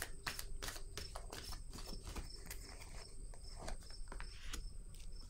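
Tarot cards being shuffled and handled: a string of irregular light clicks and taps. Crickets chirp faintly in the background.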